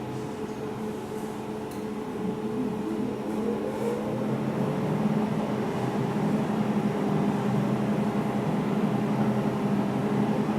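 Laser welding machine's water-cooling unit humming steadily. About three seconds in, a motor spins up with a short rising whine, and the hum grows louder and stays there.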